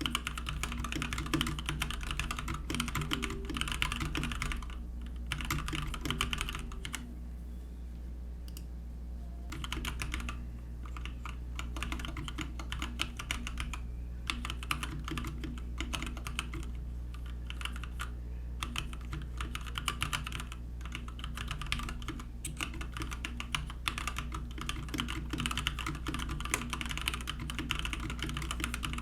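Typing on a Keychron K6 mechanical keyboard with tactile switches: a fast, continuous clatter of keystrokes that thins out briefly about seven to ten seconds in. A steady low hum runs underneath.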